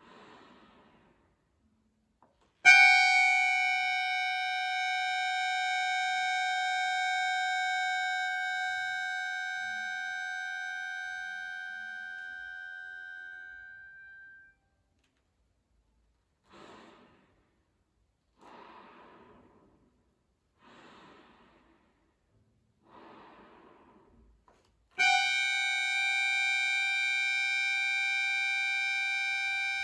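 Chromatic button accordion: a single high note comes in loudly about three seconds in and is held, slowly fading away over some twelve seconds. Then come four short breathy whooshes of bellows air, like sleepy breathing. Near the end the same note sounds loudly again and is held.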